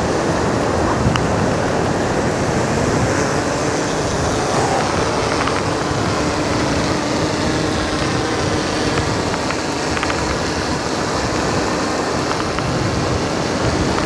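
Strong wind on the microphone and surf, with the faint hum of a Gannet Pro+ fishing drone's rotors rising in pitch as it lifts off about three seconds in, then holding steady as it flies out over the water.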